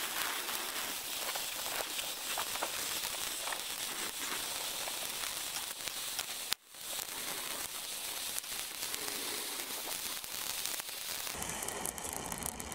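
Oxy-acetylene torch flame hissing steadily, with the crackle and spatter of molten steel as filler rod is fed into the weld pool. The sound drops out briefly about six and a half seconds in.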